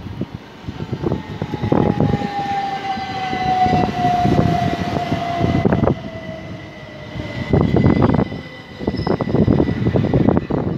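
Southern Class 377 Electrostar electric multiple unit passing close by. Its traction motors give a whine that falls steadily in pitch, while the wheels clatter over rail joints in clusters of knocks.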